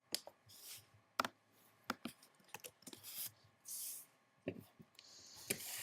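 Faint handling of a Rubik's Cube: scattered sharp clicks and a few short rubbing, sliding sounds.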